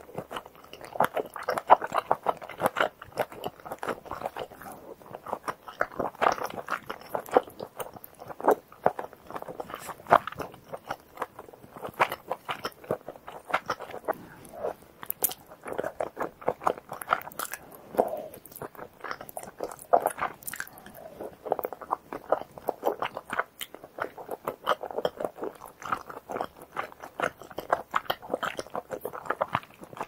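Close-miked eating sounds: chewing and biting chewy rice cakes and glass noodles in a creamy rosé sauce with melted cheese, giving dense, quick, wet, sticky mouth clicks.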